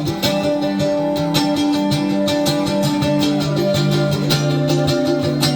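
Guitar played live: a picked instrumental passage of quick plucked notes over held lower notes.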